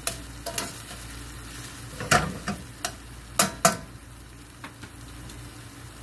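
A metal utensil clinking and scraping against a stainless steel skillet while sliced onions and whole garlic cloves are stirred. There are several sharp knocks in the first four seconds, the loudest about two seconds in. Under them runs the steady sizzle of the onions sautéing.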